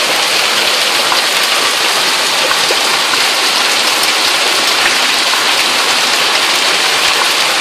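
Heavy hail pouring down, a dense, steady hiss and clatter of hailstones striking surfaces, with many small individual hits throughout.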